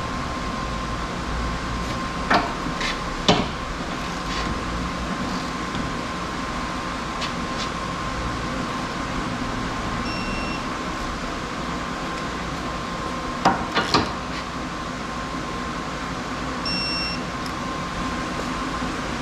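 Steady workshop hum with a thin constant tone, broken by a few sharp metallic clinks of hand tools: a pair a couple of seconds in and another pair near the middle. Two short faint electronic beeps also sound.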